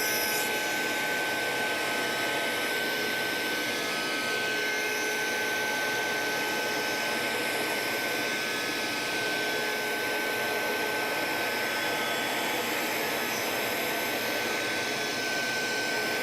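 Table-mounted router running at full speed with a bearing-guided rounding cutter, trimming the edges of a small wooden piece as it is fed round the bearing: a steady, even whine that holds one pitch throughout.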